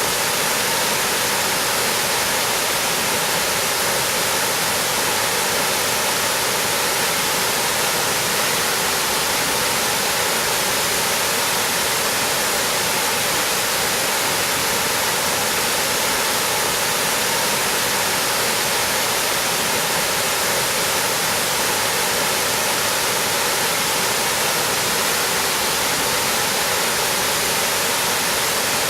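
Water falling over the Seven Falls of Adera, a multi-tiered waterfall, making a steady, unbroken rush of noise that never changes.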